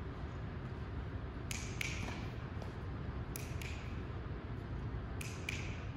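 Steady low room rumble, with three pairs of short sharp taps about two seconds apart.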